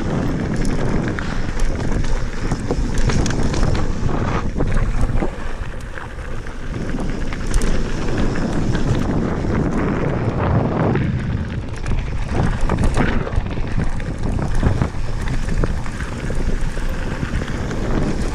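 Wind rushing over the camera microphone as a Santa Cruz Bronson mountain bike rolls down a gravel and small-stone trail, with continuous crunching and rattling from the tyres and bike over the stones.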